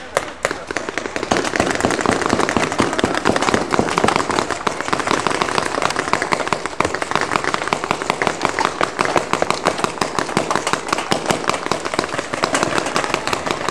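Many paintball markers firing at once in rapid, overlapping volleys, a dense crackle of pops that grows louder about a second in.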